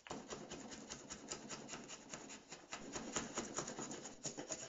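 Birch plywood being worked with a hand tool in quick repeated scraping strokes, several a second, as its layers are delaminated.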